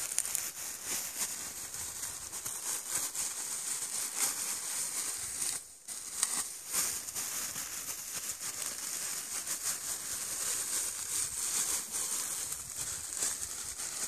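Crinkling and rustling as a buried find's wrapping is opened by hand: a dense run of small crackles that dips briefly about six seconds in.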